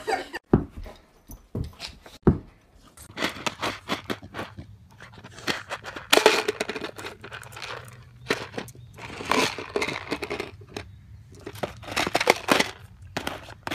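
A plastic tub being pushed, knocked and scraped along asphalt by a dog, in repeated bursts of scraping and clattering.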